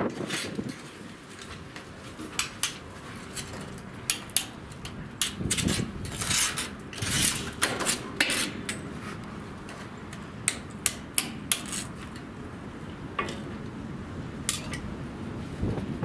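Irregular sharp clinks and knocks, coming in clusters, as bricks and tools are handled and fitted into the gap between a brick wall and a corrugated metal canopy.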